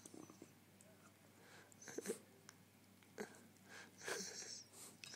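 West Highland white terrier giving a few faint, short breathy snorts through its nose while playfully mouthing a hand.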